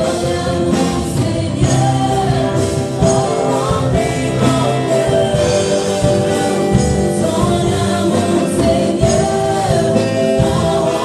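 Live gospel worship song: a female lead singer and a small group of backing singers, with keyboard, drum kit and electric guitar.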